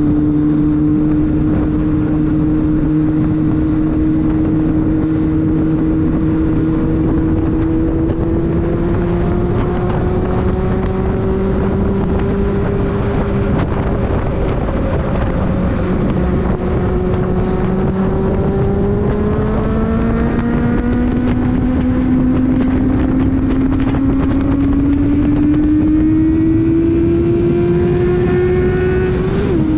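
Kawasaki Z750's inline-four engine pulling under a steady ride, its note climbing slowly, easing around the middle, then climbing again before dropping sharply right at the end as the throttle closes. Wind rushes over the microphone throughout.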